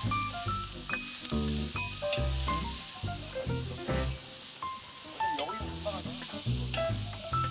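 Diced vegetables and halved tomatoes sizzling as they fry in oil in a pot, with background music of short, steady bass notes over it.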